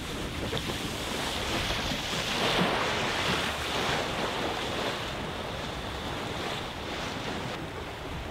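Sea water rushing past the hull of a Volvo Ocean 65 racing yacht under sail, with wind buffeting the microphone. The rush swells for a couple of seconds around the middle.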